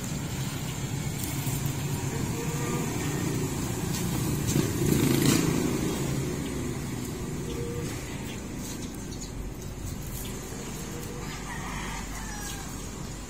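Steady low hum of a running engine, swelling briefly about five seconds in.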